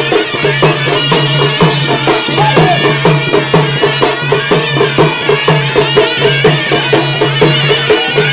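Loud traditional Indian folk music: drums strike a fast, even beat of about four a second over a low sustained drone, with a high wavering melody on top.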